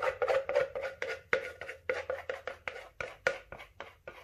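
A stir stick scraping and tapping quickly around the inside of a plastic resin-mixing cup, about five short strokes a second, scraping out the last of the resin.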